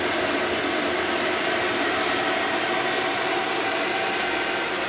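Steady fan-like hum with faint low tones inside the cab of a light-rail tram standing at a station platform: its air-conditioning and electrical equipment running while it waits.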